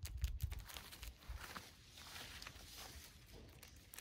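Clear plastic bag around an air-layer root ball crinkling and rustling as it is handled and snipped with scissors, with scattered small clicks. A few dull low bumps come in the first half-second.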